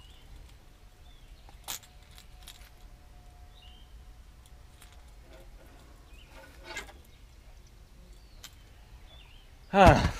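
Faint clicks and light rattling from a tangled topwater lure being worked free by hand, over a low wind rumble with a few faint bird chirps. Near the end comes one short, loud vocal exclamation.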